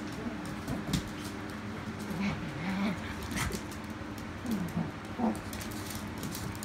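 Two dogs play-wrestling, a Great Pyrenees and a small dog, with several short, low whines and grumbles that slide up and down in pitch. A few sharp clicks and scuffs come in between.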